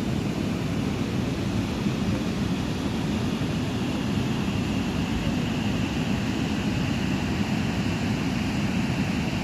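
Steady rushing of water at a river waterfall, an even rumbling noise with no breaks.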